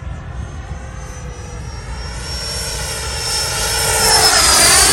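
Freewing Yak-130 RC jet's twin electric ducted fans whining in a fly-by. The whine grows steadily louder as the jet approaches, peaks near the end as it passes close, and drops in pitch as it goes by.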